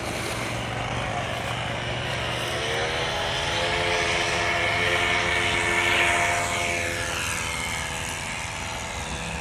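Radio-controlled model floatplane's engine and propeller buzzing as it flies past: the pitch rises about two and a half seconds in, it is loudest around six seconds, then the pitch drops as it moves away.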